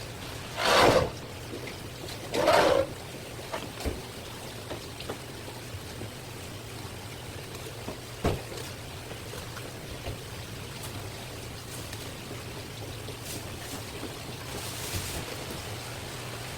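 Water trickling and splashing, with two short, loud splashes near the start and a few light knocks after them.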